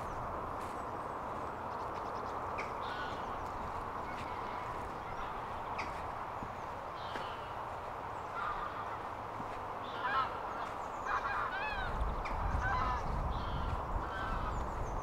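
Geese honking, a run of short calls starting about halfway in, over a steady background hiss. A low rumble joins near the end.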